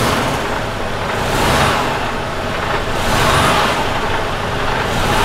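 Mercedes Actros 1845 truck's straight-six diesel engine running and revved about three times from the accelerator pedal, each rev swelling up and falling back.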